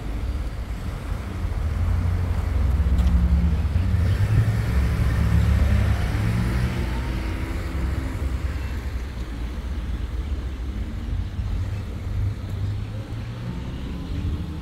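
Street traffic: a motor vehicle's engine and tyres swell as it passes, loudest a few seconds in, then a steadier low hum of road traffic.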